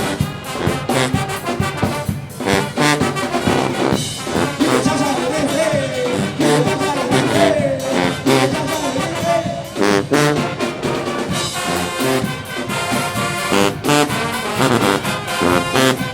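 HBCU marching band playing a brass-heavy tune, trombones and trumpets over a driving drum beat.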